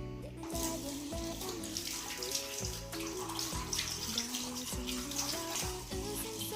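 Background music, a melody over bass notes, with a steady high hiss laid over it from about half a second in until near the end.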